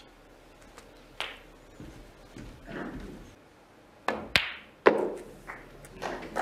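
Snooker balls clicking: a few sharp, separate clicks of cue tip and balls striking on the table, one about a second in and a quick cluster of three a little past the middle.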